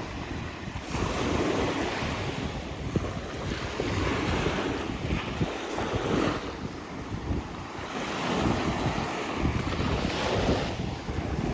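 Sea waves washing onto a beach, the rush swelling and falling back every few seconds, with wind buffeting the microphone.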